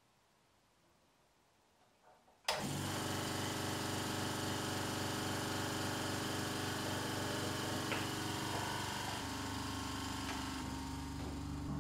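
A 750-watt silent-type air compressor switching on about two and a half seconds in after near silence, then running steadily with a constant motor hum, its pitch shifting slightly near the end.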